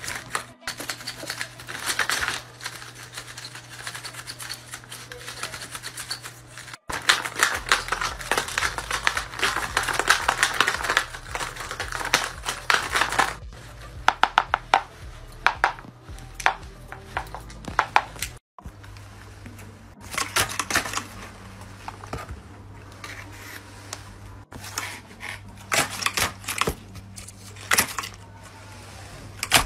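Irregular clicks, snips and rustles of paper being handled up close, over a low steady hum; the sound drops out for an instant twice.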